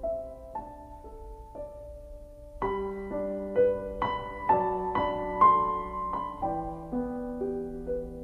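Background piano music: slow notes and chords, each struck and left to ring, with a fuller passage of chords starting a little under three seconds in.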